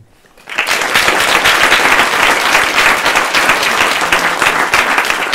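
Audience applause from a room of people clapping, beginning about half a second in and holding steady.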